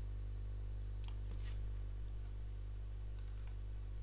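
Computer keyboard being typed on: a few scattered, quiet keystrokes, over a steady low electrical mains hum that is louder than the clicks.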